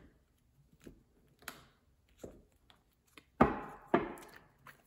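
Tarot deck being cut by hand, the card stacks knocked and set down on a cloth-covered table: a few light taps, then two louder knocks about half a second apart near the end.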